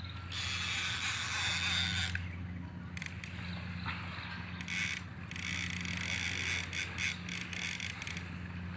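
Fishing reel ratcheting under load as a hooked fish is fought: a dense stretch of clicking for nearly two seconds near the start, then shorter bursts of clicks through the rest, over a steady low hum.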